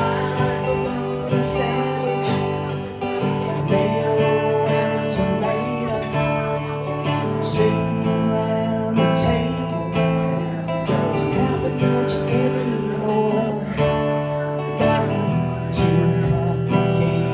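Acoustic guitar strummed through a song, the chords changing every few seconds.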